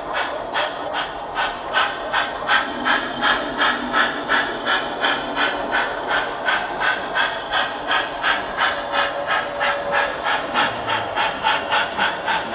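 Model freight train running past on a layout, with a steady rhythmic beat about three times a second over a constant hiss.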